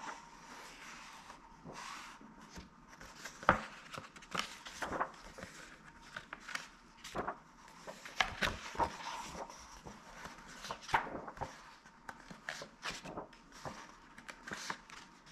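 Paper pages of a cookbook being turned and pressed flat by hand: irregular rustling and crisp flicks of paper, the loudest about three and a half seconds in.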